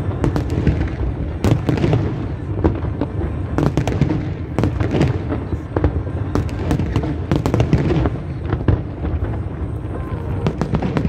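Aerial fireworks display: a dense, irregular run of sharp bangs and crackles over a continuous low rumble.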